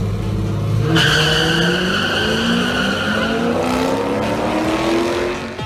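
Drag-racing cars launching hard about a second in, with a tyre squeal, then engines accelerating down the strip, their pitch climbing steadily.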